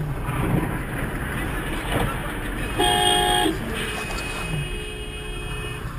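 Car horn honking: a short, loud blast about three seconds in, followed by a longer, fainter horn tone, over steady road and engine noise. A brief knock comes just before the first blast.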